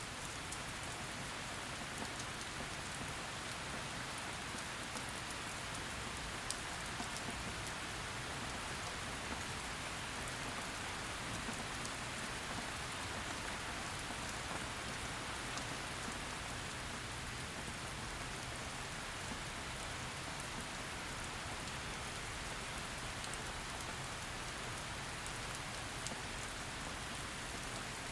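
Heavy rain falling steadily, a dense even hiss with scattered patter of individual drops.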